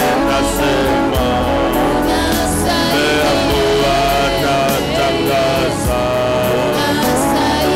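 Live gospel worship song in Swahili: a congregation and a worship leader on a microphone singing together over instrumental backing with a steady beat.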